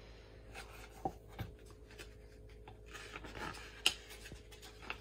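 Soft paper rustling and a few short taps as a hardcover picture book is handled and its page turned.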